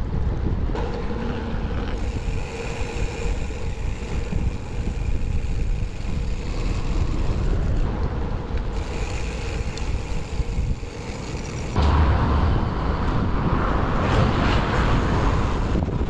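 Wind rushing over the microphone of a camera mounted on a moving bicycle, mixed with road and traffic noise. The level jumps at cuts, and the traffic gets louder from about twelve seconds in.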